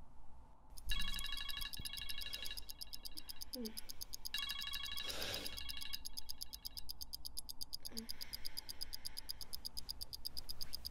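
Smartphone alarm going off: a rapid pulsing electronic tone that sounds in spells of a couple of seconds, with a brief rustle about five seconds in.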